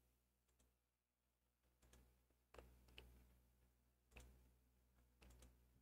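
Near silence, broken by a few faint computer mouse clicks: single clicks at about two and a half, three and four seconds in, and a quick pair near the end.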